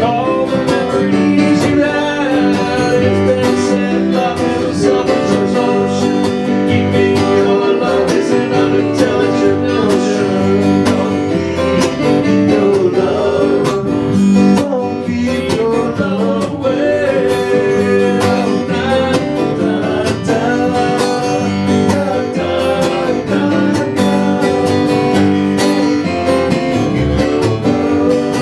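Music: strummed acoustic guitar playing a song's instrumental stretch.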